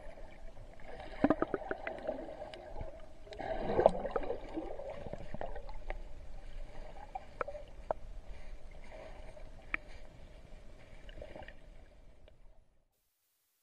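Water sloshing and splashing, with scattered sharp clicks and knocks, fading out shortly before the end.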